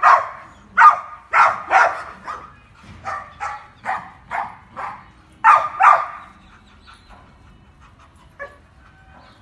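A dog barking repeatedly during play: about a dozen short, sharp barks that stop about six seconds in.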